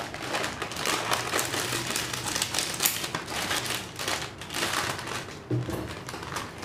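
Metallised plastic snack packet crinkling and crackling irregularly in the hands as it is torn open.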